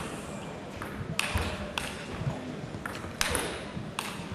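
Table tennis rally: a celluloid ball clicking sharply off bats and table, about half a dozen hits in irregular succession.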